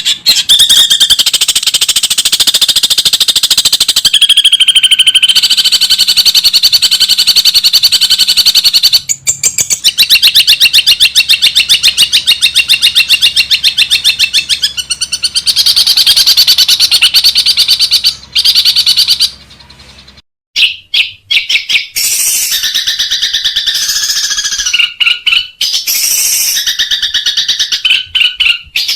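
Long-tailed shrike (cendet) singing a loud, fast, harsh chattering run of rapidly repeated high notes. It breaks off briefly twice, and after the second break it turns to shorter, more varied chirps in its mimicking song.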